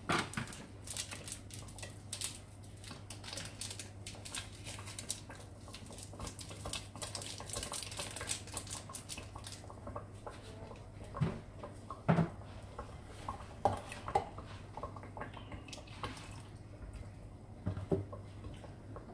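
Crackling and rustling of a small foil seasoning sachet being opened and shaken out over a pot of soup. This is followed by a few separate clinks of metal kitchenware against a steel pot.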